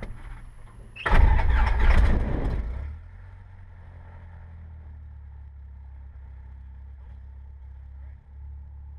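Cessna 172's piston engine cranking and catching on a start primed by pumps of the throttle. It is loud for about two seconds from a second in, then settles to a steady, muffled low drone at idle.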